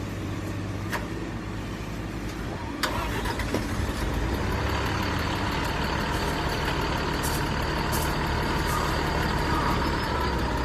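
Mini excavator's diesel engine running. A click about three seconds in is followed by a louder, fuller running sound with a steady higher whine, as the machine comes under more throttle or hydraulic load.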